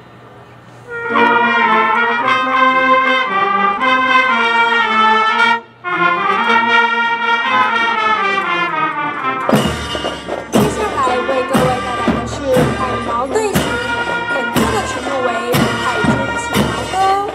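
Military drum and bugle corps playing: brass sustained chords come in about a second in, break off briefly, then drums join about ten seconds in with strong, evenly spaced beats under the brass.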